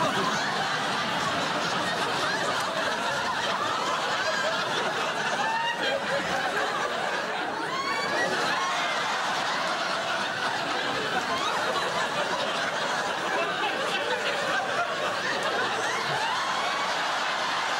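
Studio audience laughing: a dense, steady mass of many people's laughter that starts suddenly and does not let up.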